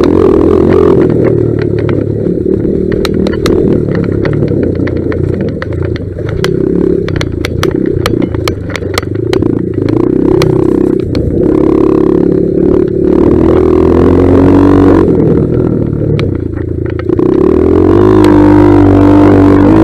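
1982 Honda XR200R's single-cylinder four-stroke engine revving up and down as the dirt bike is ridden over rough trail, with frequent sharp clatter and knocks from the bike jolting over the ground. Near the end the engine settles to a steadier pitch.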